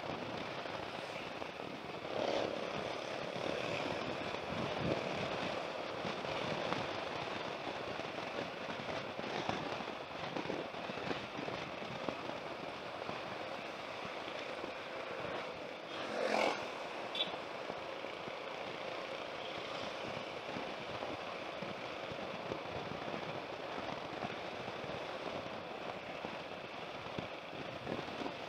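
Wind rushing and crackling on a motorcycle rider's helmet microphone while riding along a road, with road noise underneath. A brief louder rush of noise comes about sixteen seconds in.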